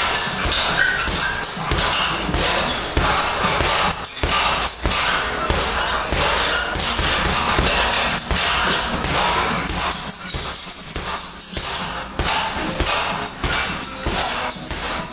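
Gloved punches landing on a heavy bag and a double-end ball in quick, irregular succession, each a sharp thud. The blows ring in a shed with corrugated metal walls.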